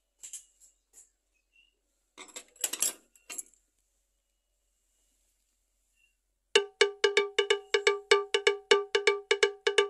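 A brief rustle of handling, then, about six and a half seconds in, a fast, even run of the same bell-like struck note repeated about five times a second, like a cowbell.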